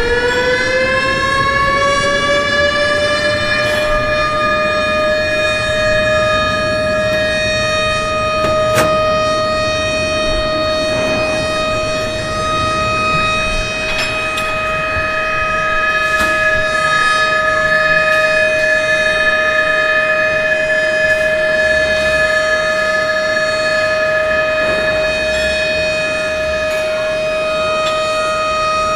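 Experimental noise piece: a siren-like wailing tone glides up in pitch over the first few seconds and then holds steady. Higher steady tones sit above it, over a hissing noise bed.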